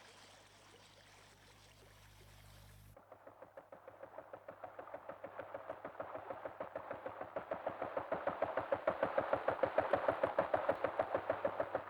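A faint, even hiss like running water for about three seconds, then a fast, regular chugging of about six knocks a second that starts quietly and grows steadily louder, like an approaching motor.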